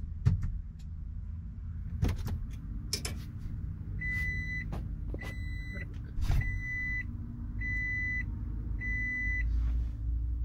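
2009 Toyota Prius warning chime beeping five times at one steady pitch, about once a second, as the car is switched to ignition-on mode. Several sharp clicks come before the beeps, and a steady low hum runs underneath.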